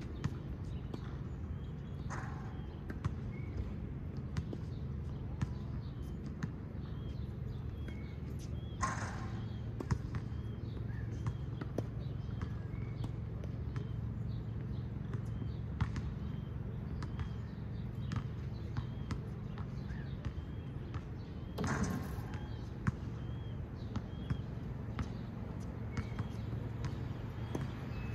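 Scattered sharp knocks at irregular intervals over a steady low hum.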